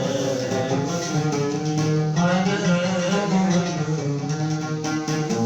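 Instrumental passage of a Yemeni song: a plucked string instrument plays a busy melody over accompaniment, with no singing.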